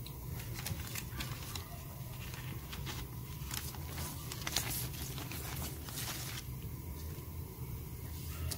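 Thin plastic piping bag and its packaging rustling and crinkling as they are handled, a string of sharp crackles from about half a second to six seconds in. A steady low hum runs underneath.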